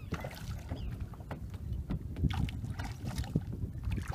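Wind buffeting a phone's microphone in a low, steady rumble, with scattered sharp clicks through it.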